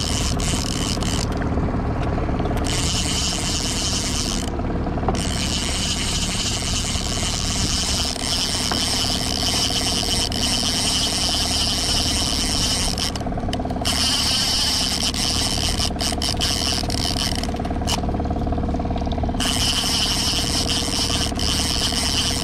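A boat's motor runs steadily at trolling speed, under a constant hiss.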